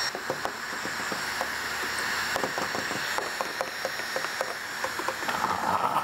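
Electric heat gun running with a steady blowing hiss, heating the film edges, with many small scattered clicks and ticks from the squeegee working over the film.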